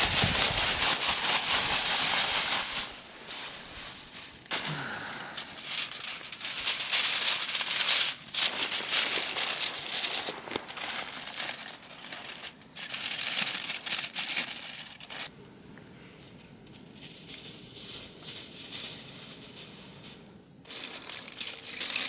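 Aluminium foil being crumpled and crinkled in irregular bursts as fish is wrapped in it, loudest in the first few seconds.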